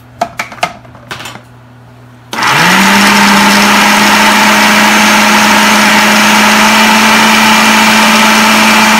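A few light knocks, then a countertop food processor switches on about two seconds in. Its motor quickly runs up to a loud, steady whir as it blends crushed biscuits into a dough.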